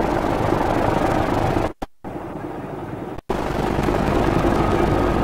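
Railway locomotive running: a steady mechanical noise with a low hum. It cuts off abruptly about two seconds in and again a little after three seconds, like spliced sound clips.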